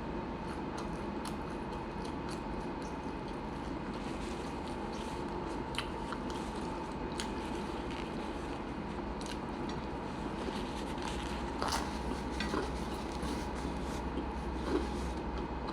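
Close-up eating sounds of a person chewing and biting a sandwich, with scattered small clicks, over a steady background hum.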